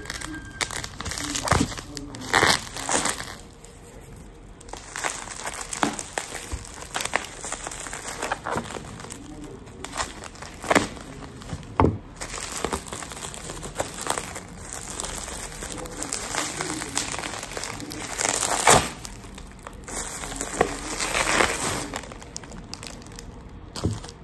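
Plastic bubble wrap crinkling and crackling as it is handled and pulled open by hand, with irregular sharp crackles scattered throughout.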